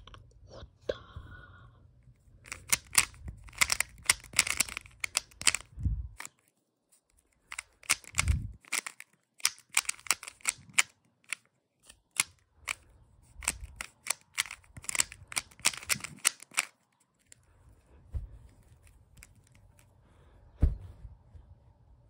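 Plastic layers of a 3x3 Rubik's Cube clicking and clacking as they are turned quickly, in runs of rapid turns with short pauses between, on the way to a solved cube. A few dull thumps come in between the runs.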